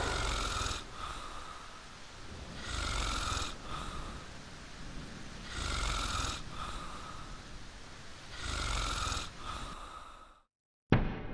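A man snoring slowly and steadily: four long snores about three seconds apart, each loud at first and then softer. Near the end the sound cuts to silence, then a single sharp thud.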